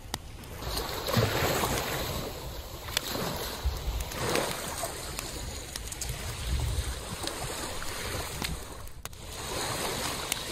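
Small sea waves washing up onto a sandy shore, a noisy rushing that swells and falls every couple of seconds.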